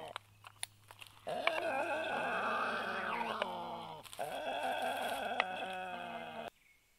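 Black stork nestlings calling: two long, harsh, bleating calls whose pitch slides downward, after a few sharp clicks in the first second. The sound cuts off abruptly near the end.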